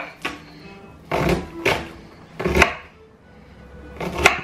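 A kitchen knife slicing corn kernels off an upright cob onto a wooden chopping board: about six quick downward cutting strokes, a few to a second, spread irregularly.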